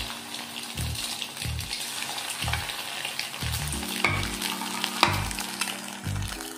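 Egg balls deep-frying in hot oil in an aluminium kadai: a steady sizzle and bubbling, with a few sharp crackles about four and five seconds in. Background music with a steady bass beat plays underneath.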